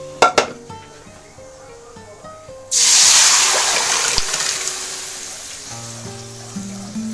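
A wet mixture of rice rava and grated coconut hitting hot oil and mustard-seed tempering in a kadhai: a sudden loud sizzle about three seconds in that slowly fades. A couple of sharp clinks near the start, with soft background music throughout.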